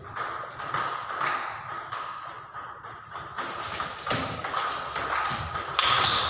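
Table tennis rally: the celluloid ball clicks back and forth off the rubber paddles and bounces on the table, about two hits a second, with a louder hit near the end.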